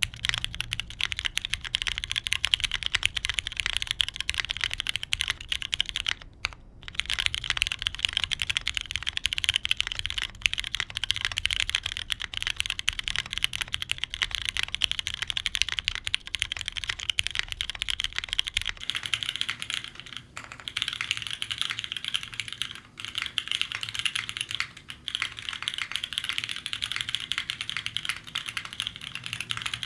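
Continuous fast typing on a custom mechanical keyboard, a Keebscape Solaris with lubed Cherry MX2A Brown tactile switches, an FR4 plate in an O-ring mount and GMK keycaps: a dense run of soft key clacks, with a brief pause about six seconds in.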